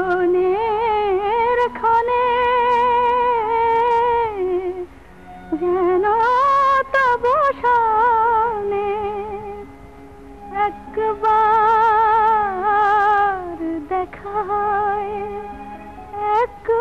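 A woman's voice singing a slow Bengali film song in long, held notes with a wavering vibrato, in three or four phrases that each rise and then fall away, over a faint steady low tone.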